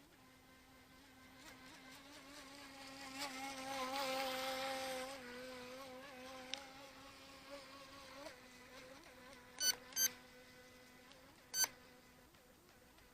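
Electric motor of a UDI Rapid RC speedboat whining at a steady pitch, like a buzzing insect. It grows louder around four seconds in, then fades away. Near the end come three short, sharp sounds, twice in quick succession and then once more, louder than the whine.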